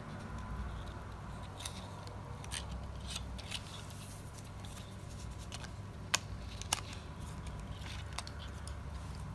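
Small plastic kit parts handled and pressed together: light clicks and taps of plastic pins being pushed onto the pegs of Strandbeest fan blades, with two sharper clicks about six seconds in, over a low steady hum.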